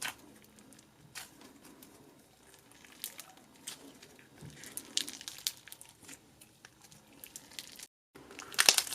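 Slime being handled and pressed, giving scattered soft crackles and clicks. The crackles come thicker about halfway through, and louder and denser right at the end after a brief gap.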